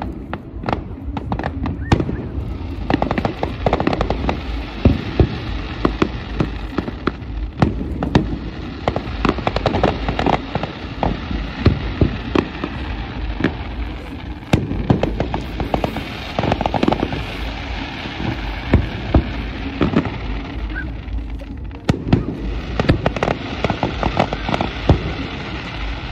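Fireworks display: a dense run of aerial shell bursts, with sharp bangs every second or so over continuous crackling and a low rumble.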